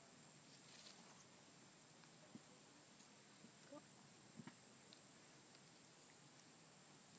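Near silence over a faint, steady high insect buzz of the rainforest, with a few soft clicks around the middle.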